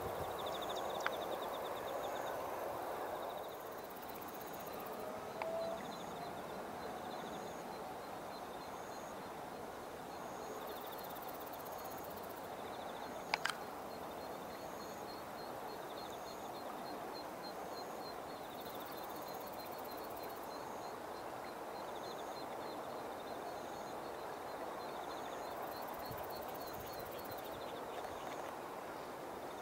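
Early-morning countryside ambience of insects trilling steadily in rapid pulses. A short high note repeats about every second and a half over it. There is a single sharp click about halfway through.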